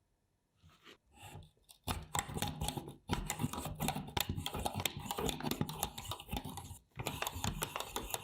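A restored 1906 automatic pencil sharpener at work, giving a rapid, dense clicking that starts about two seconds in and breaks off briefly twice.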